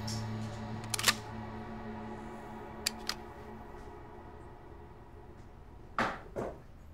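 Clicks and knocks of small objects and wooden boxes being handled on a desk: one sharp click about a second in, two quick ticks near three seconds, and two duller knocks near the end. Background music fades out under them.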